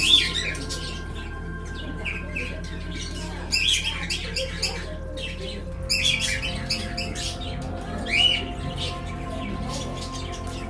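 Songbirds chirping and squawking in quick bursts every couple of seconds, over a soft steady music bed.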